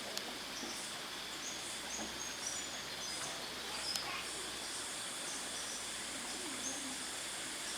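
Rainforest ambience: short, high-pitched chirps repeating every second or so over a steady background hiss.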